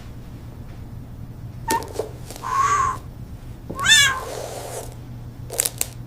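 A cat meowing twice, about two and a half and four seconds in; the second meow is louder and higher. A steady low hum runs underneath, with a few short clicks.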